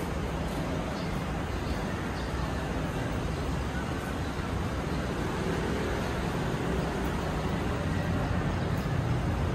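Steady city traffic noise: a low, even hum of vehicles on the street below.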